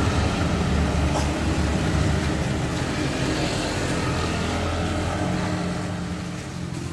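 Tour bus diesel engine running under load on a steep climb, a deep steady engine noise that eases a little near the end.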